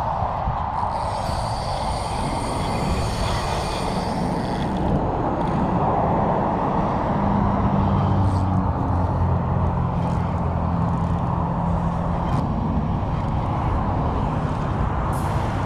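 Steady noise of road traffic. A vehicle engine's low hum comes up a few seconds in and fades after the middle, with a few faint clicks.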